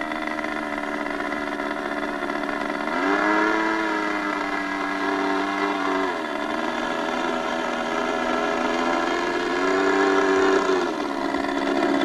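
YS 45 glow engine of a radio-controlled model jet with a pusher propeller, running at taxi throttle. It is throttled up twice: about three seconds in, and again near ten seconds. Each time the pitch rises for a second or more before dropping back.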